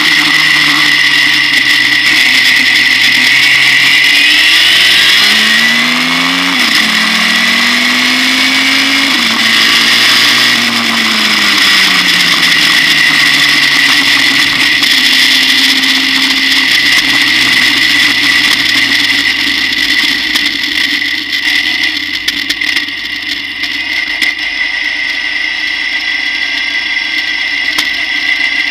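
Turbocharged 1.4 K-series engine of a Vision V89 clubmans racing car, heard onboard, the revs climbing and dropping sharply several times as it accelerates and changes gear. A steady high whine runs over the engine note. In the last third the revs stay lower and the engine is quieter.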